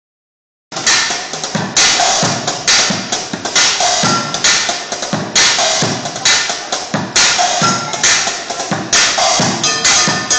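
Bucket-and-kitchenware drumming: upturned plastic buckets and metal pots, pans and lids beaten in a fast, steady groove, low bucket thumps under bright metallic crashes. It starts under a second in.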